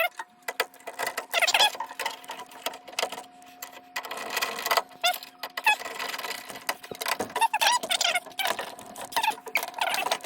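Irregular clicking, tapping and squeaky scraping of hands working on furnace parts. A steady hum starts a moment in and carries on underneath.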